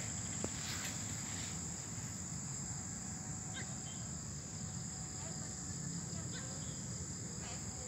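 Crickets trilling steadily over a low rumble of background noise, with a few faint short chirps.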